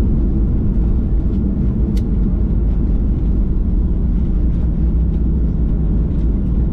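Cabin noise of a Boeing 737-900ER rolling along the runway after touchdown: a steady low rumble from the engines and wheels, with a small click about two seconds in.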